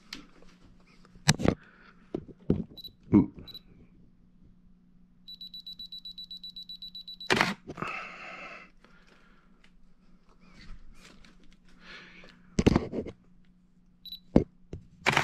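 Canon 5D Mark II DSLR beeping and clicking: short high focus-confirmation beeps, handling clicks from its buttons, and a quick run of beeps lasting about two seconds. That run ends in the sharp clack of the shutter and mirror firing.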